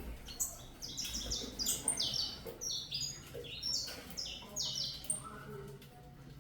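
Female saffron finch (canário-da-terra) and her chicks chirping: a rapid stream of short, high, falling notes tumbling over one another, thinning out about five seconds in.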